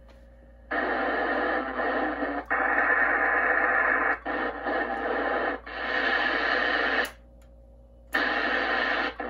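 Hiss of static from a ham radio transceiver's speaker, coming in about a second in and dropping out briefly several times, then stopping for about a second near the end before coming back.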